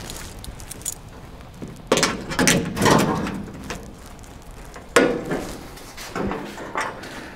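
Sheet-metal roll pan being handled against a truck's rear and a locking C-clamp set on its bottom bracket: scattered metallic clanks, rattles and clicks, with a sharp knock about five seconds in.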